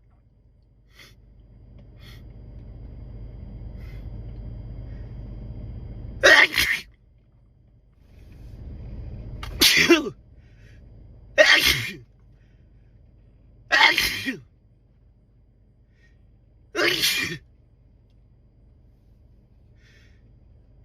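A man sneezing five times in a row, loud wet spray sneezes a few seconds apart. Before each of the first two comes a long build-up of breath noise that grows over several seconds.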